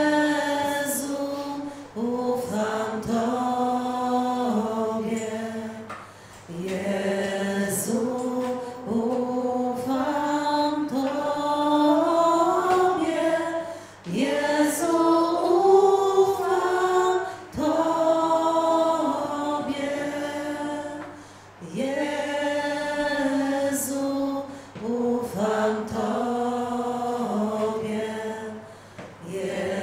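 A group of voices singing a slow religious hymn, seemingly unaccompanied, in phrases with short breaks between them.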